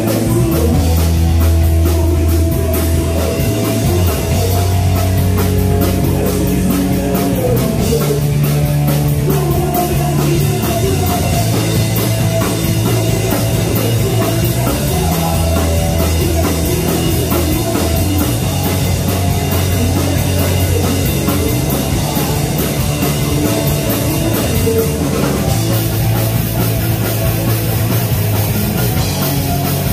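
Punk rock band playing live and loud: electric guitar, bass guitar and drum kit, with held bass notes changing every second or two.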